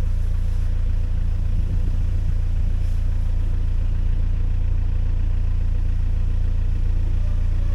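Narrowboat engine running steadily under way, a low even rumble.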